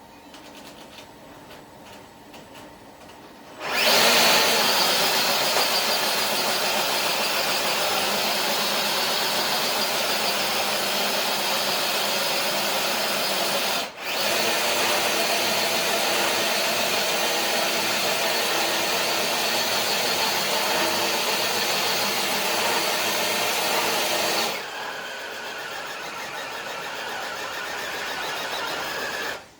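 Electric motor and geartrain of an RC crawler truck whining under load as it drags a brick-weighted dead sled across concrete. It starts about four seconds in, drops out for a moment midway, and runs softer over the last few seconds.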